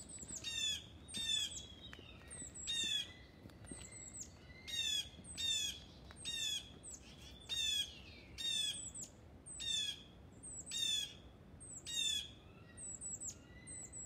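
Blue jay calling over and over, short harsh jay calls about once a second, each note bending downward.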